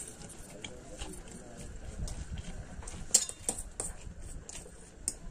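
Metal forks clinking and scraping against plates while people eat noodles, with a few sharper clinks a little after three seconds in.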